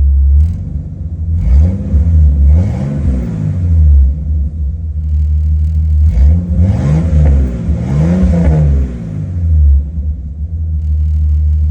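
1988 Jeep XJ engine idling, blipped up and back down a few times in two bursts, about two seconds and six seconds in, then settling back to a steady idle that the owner judges now sounds close to normal.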